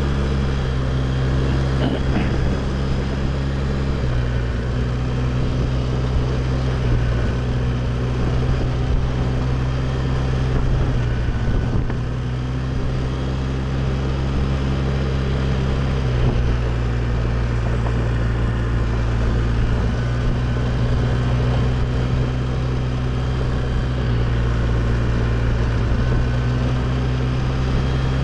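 Quad (ATV) engine running steadily while riding a trail, its note stepping up a little about four seconds in and dropping back about two-thirds of the way through.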